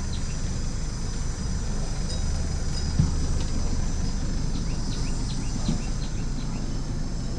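Kawasaki Ninja ZX-6R's inline-four engine idling with a steady low rumble through its Akrapovič exhaust, with faint high chirps over it.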